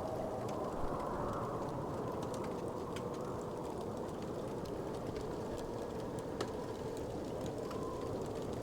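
Wood fire crackling: scattered small pops and ticks, two a little louder, over a steady low rushing background.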